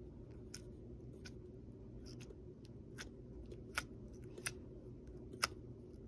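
Borax-activated slime popping as it is squeezed and folded in the hands: about eight sharp little snapping pops at irregular intervals, the loudest in the second half. It is a slime pop test, and the slime pops really well.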